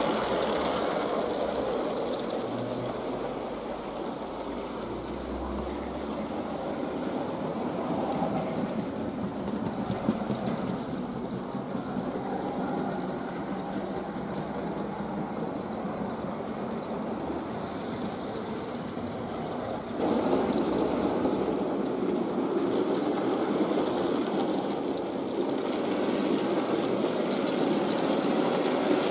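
Fleischmann H0 model class 151 locomotive with its round motor running steadily as it hauls freight wagons over the track, a typical Fleischmann purr. The running noise gets louder about two-thirds of the way through.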